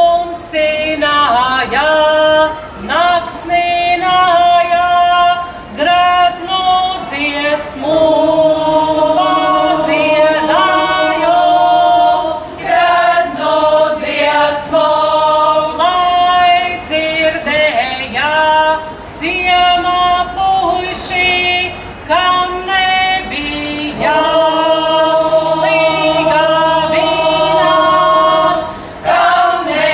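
Latvian folk ensemble of women singing a folk song in parts, phrase by phrase, with short breaks between phrases.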